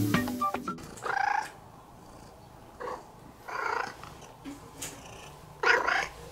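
A domestic cat making several short calls, each brief and a second or more apart, after a few notes of music end within the first second.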